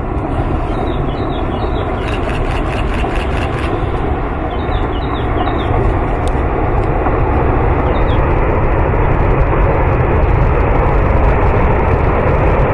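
Landslide rumbling steadily as earth and debris tear through a forest, a deep continuous noise, with a run of sharp cracks about two seconds in and a few short high chirps over it.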